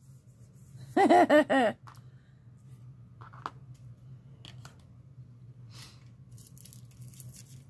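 Light taps and rustles of paper and cardstock being handled as a stamped sentiment panel is pressed onto a card. About a second in there is a brief wordless vocal sound from the crafter. A low steady hum runs underneath.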